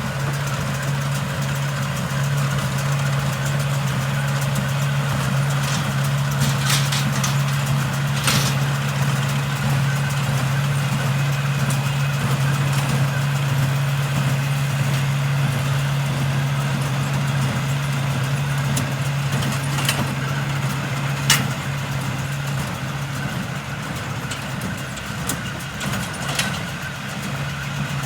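Tractor engine running steadily at a constant speed, with a few sharp clicks or knocks, one about eight seconds in and a louder one about twenty-one seconds in.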